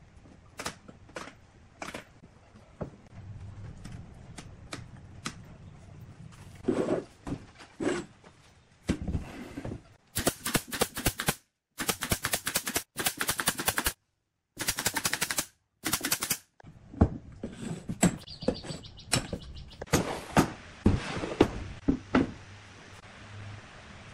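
JOK pneumatic brad nailer firing rapid strings of brads into a wooden frame, in several quick bursts between about 10 and 16 seconds in, each cut off by a sudden silence. Scattered knocks and clicks of wood and clamps being handled come before and after.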